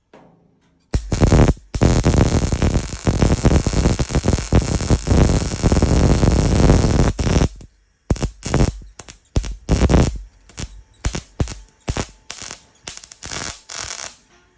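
Wire-feed MIG welder crackling as it welds a steel body panel: one continuous bead of about six seconds, then a series of short bursts of a second or less, like tack or stitch welds.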